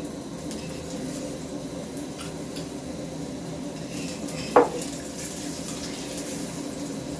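Kitchen clatter of a cooking pan and utensils with a faint sizzle, and one sharp metallic clank about four and a half seconds in.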